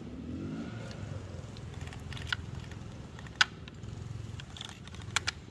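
Neo-Tec 2500 top-handle chainsaw being pull-started without starting: a short rope pull near the start, then a few sharp clicks as the saw is handled, the loudest about three and a half seconds in. No engine runs.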